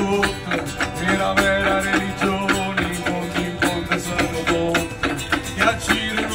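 Live folk-style band music: acoustic guitars with hand percussion keeping a steady beat.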